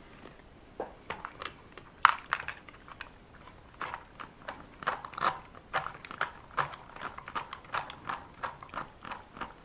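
Small irregular clicks, taps and crinkles of a plastic grease tube being handled and squeezed as white grease is applied to an RC car's metal gears.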